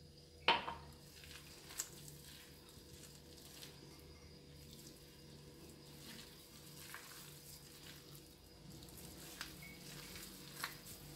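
A hand kneading ground peanuts with egg and melted butter in a glass bowl, a faint rustling and squishing of the crumbly mix, with a few sharp clicks, the loudest about half a second in.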